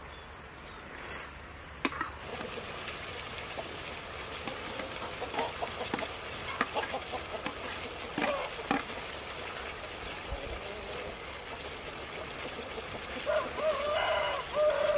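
Chicken feet and shredded lemongrass sizzling in a hot wok, with a metal spatula clicking and scraping against the pan as they are stir-fried. A rooster crows near the end.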